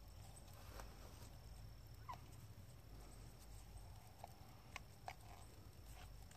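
Near silence: a faint low background hum with a few soft clicks and short chirps scattered through it.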